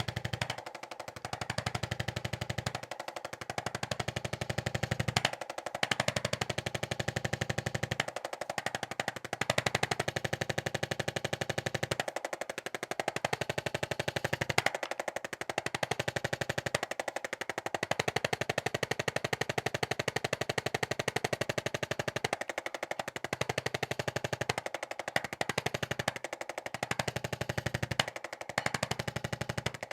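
Chiropractic adjusting instrument tapping rapidly against the spine, in runs of a few seconds broken by short pauses; it is loosening up the spine ahead of the manual adjustment.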